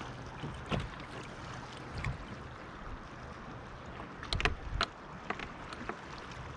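Scattered sharp clicks and knocks from handling a hooked fish and tackle against a plastic kayak, loudest in a quick cluster of three a little past the middle, over a steady hiss of water and light wind.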